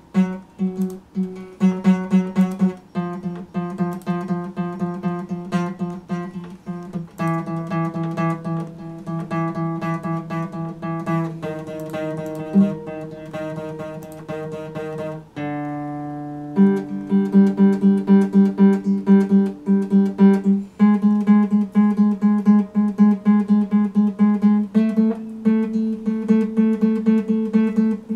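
Epiphone acoustic guitar strummed in a steady rhythm through a series of chord changes. About halfway through, one chord is left to ring for a second or so before the strumming resumes.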